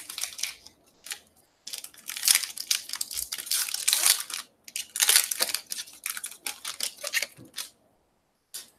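Foil trading-card pack (Topps Stadium Club) being torn open and handled, giving crinkling, crackling wrapper rustles in repeated bursts for several seconds, then one short rustle near the end.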